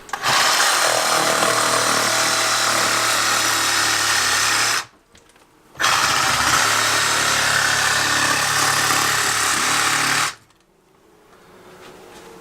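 A loud motorised machine running at a steady, even level. It cuts out for about a second near the middle, comes straight back on, and shuts off about ten seconds in.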